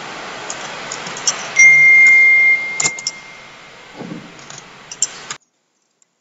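Mouse clicks over a steady hiss, broken by a loud, steady high-pitched beep that lasts about a second and then fades. Near the end the sound cuts off suddenly into silence.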